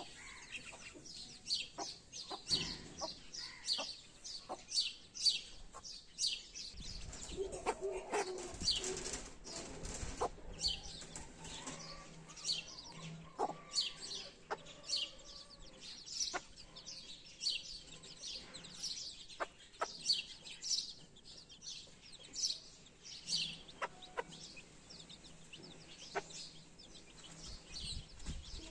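Domestic chicks peeping constantly in short, high-pitched notes, while the mother hen clucks low now and then.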